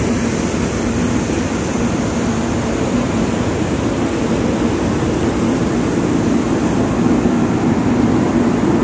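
Steady drone of a container ship under way at 13 knots, heard on deck: the engine's low hum over the rush of wind and churning wake water.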